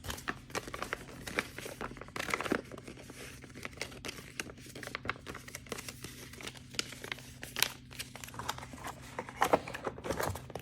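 Knife packaging (paper brochure, cardboard box and foam) being handled and put away, giving irregular crinkling and rustling with small knocks. A steady low hum sits underneath.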